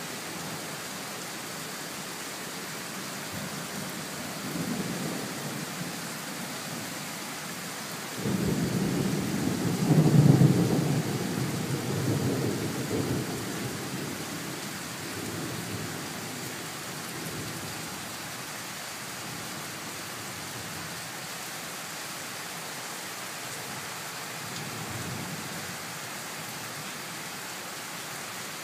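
Heavy rain falling steadily in a thunderstorm, with rolling thunder. A long rumble starts suddenly about 8 seconds in, peaks a couple of seconds later and fades over several seconds. Fainter rumbles come before it and near the end.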